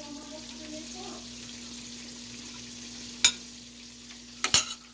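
A serving utensil clinks on cookware as green beans are spooned onto a plate: one sharp clink about three seconds in and a double clink near the end. Underneath runs a steady hiss and a low hum.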